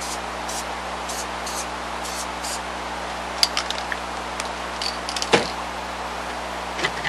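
Soft rustling of fleece fabric being wrapped around foam finger tubes, followed by a few light clicks and knocks of things being handled on the worktable. The loudest knock comes a little past halfway, and a steady hiss runs underneath.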